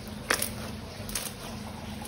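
Slime-making handling sounds: a sharp crackle about a third of a second in and a softer one just after a second, over a steady low hum.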